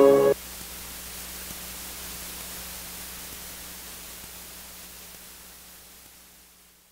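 The last plucked notes of music stop abruptly a fraction of a second in. Then a steady hiss with a low hum slowly fades out to silence.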